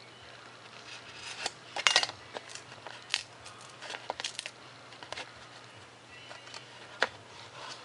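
Foam board crackling and snapping in short, irregular clicks as it is bent and broken along its scored lines, with the loudest cracks about two seconds in.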